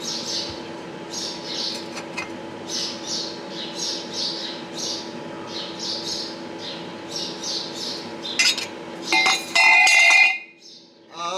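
A bird squawks over and over, two or three short calls a second, over a steady background hum. Near the end, metal parts clatter and clink loudly with a brief ringing, then go quiet.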